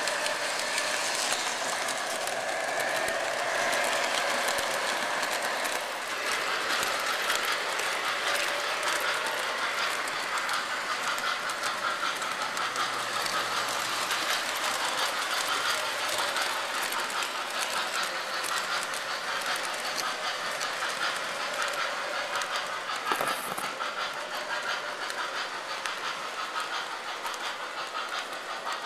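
O-gauge model trains running on three-rail track: a steady whirr of electric motors and wheels rolling on the rails, with one sharp click well past halfway.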